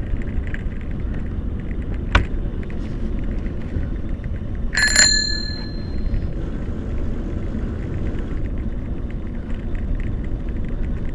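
A bicycle bell rung once about five seconds in, its bright ring fading over about a second, over a steady rolling rumble of the vehicle on a paved path. A sharp knock about two seconds in.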